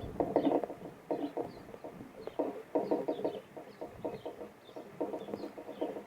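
Low, rapid clucking calls in quick clusters, with faint high chips from small birds at the feeder, likely dark-eyed juncos.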